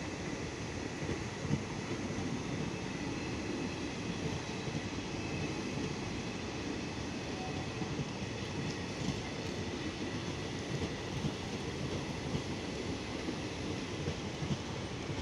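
Passenger train hauled by a WAP-4 electric locomotive rolling into a station: a steady rumble of coaches on the rails with frequent small wheel knocks and a faint high squeal.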